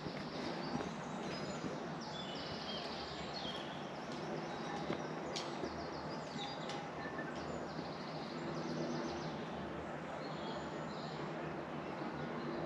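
Steady outdoor hiss on an alpine hiking trail, with several short, high, rapid chirping trills, a few seconds apart, and a couple of sharp taps in the middle.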